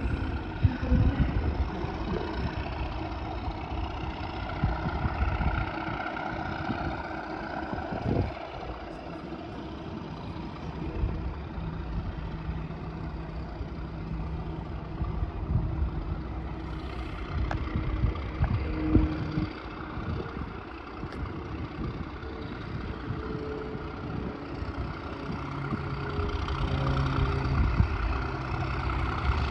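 Diesel train engine running steadily with a low rumble, mixed with wind buffeting the microphone. Over the last few seconds a diesel locomotive approaches and the sound grows louder.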